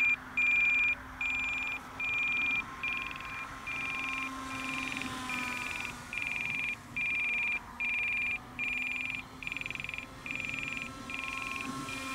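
An electronic beeper sounding a repeating high-pitched beep, about one long beep a second, the kind of alarm that comes from an RC transmitter or battery alarm. Under it, a faint whine rises and falls, fitting the small electric plane flying past at full throttle.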